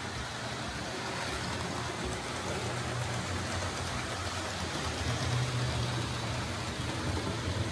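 Vintage OO-gauge model trains running on the layout: a steady rumble and hum of their electric motors and wheels on the track, with an even hiss, swelling slightly past the middle.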